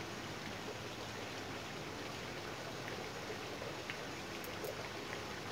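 Steady rushing hiss like running water, with a few faint ticks in the second half.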